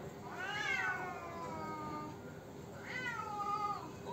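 Two domestic cats in a standoff, yowling: a long drawn-out yowl that rises then slides down, then a second, shorter one about a second later. It is the threatening yowl of cats squaring up to fight.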